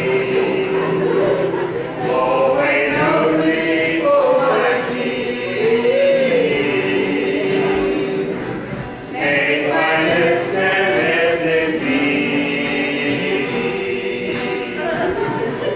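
A small mixed choir singing together in several parts, holding long notes, with a brief pause between phrases about nine seconds in.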